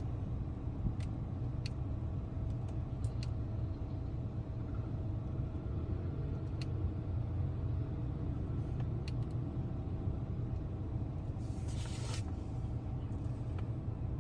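Steady low rumble with a few faint clicks and a brief hiss about twelve seconds in.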